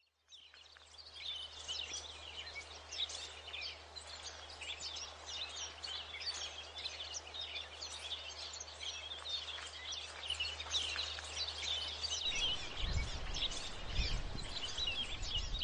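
Many small birds chirping at once, a dense, continuous twittering, over a faint low hum that stops about twelve seconds in. In the last few seconds there is some irregular low thumping.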